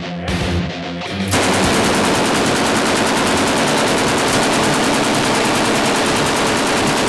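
Heavy-metal electric guitar music for about the first second, then a belt-fed machine gun firing one long unbroken burst of rapid, evenly spaced shots.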